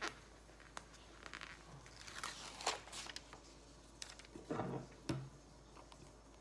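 Soft rustling and crinkling of a laser-printed label sheet as a clear sticker label is peeled from its backing, with a few light clicks and handling noises.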